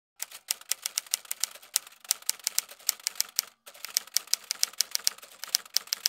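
Typewriter key strikes, a rapid run of sharp clacks several a second, with a brief pause about three and a half seconds in.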